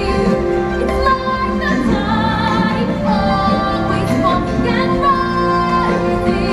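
Music with a woman singing, held notes over instrumental backing.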